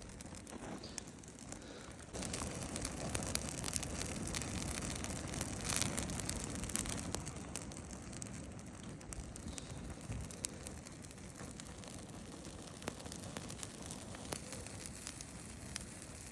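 Wood campfire burning with scattered crackles and pops over a steady rushing hiss, which grows louder about two seconds in.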